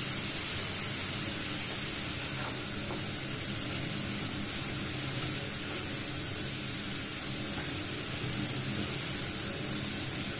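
Sliced vegetables (zucchini, carrots, bell peppers) sizzling steadily in an oiled frying pan as they sauté over lowered heat, stirred with a wooden spatula.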